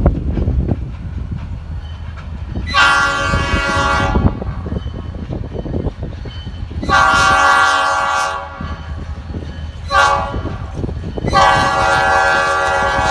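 Diesel locomotive air horn on an SD40-2 sounding the grade-crossing signal: two long blasts, a short one, and a final long blast still going at the end. Wind buffets the microphone underneath throughout.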